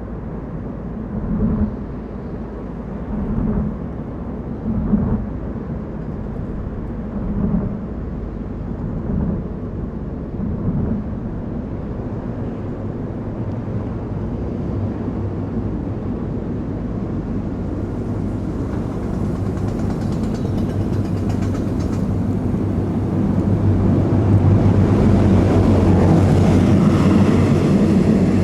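A car driving, with steady engine and road noise. There are several short swells in the first ten seconds, then it grows steadily louder from about eighteen seconds in.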